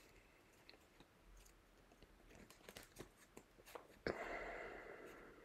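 Faint ticks and crackles of a hand of oracle cards being handled and rearranged, over near silence. About four seconds in, a sudden louder hiss fades away over a second or so.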